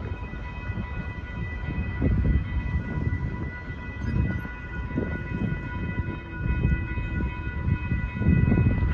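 Railroad crossing warning bells ringing continuously, a steady high ringing tone, over gusty low rumbling of wind on the microphone.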